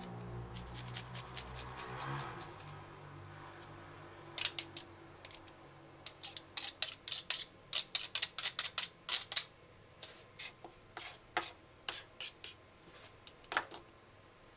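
Garlic being rasped on a flat metal hand grater, then a knife scraping and tapping the grated pulp off the grater against a plastic cutting board: a run of short, sharp scrapes and clicks, several a second, after a low hum that stops about two seconds in.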